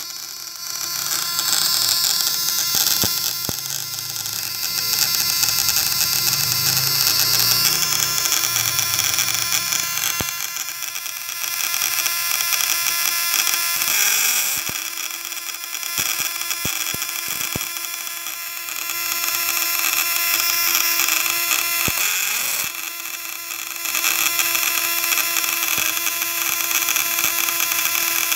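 Homemade 12-volt high-voltage shocker buzzing loudly and steadily as its vibrating contact-breaker points drive the coil, which makes sparks jump between the output wires. The buzz swells and eases in loudness, with a few sharp clicks in the middle.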